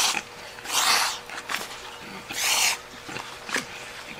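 Spaghetti slurped noisily from a bowl, three long sucks a little over a second apart, with a few faint clicks between them.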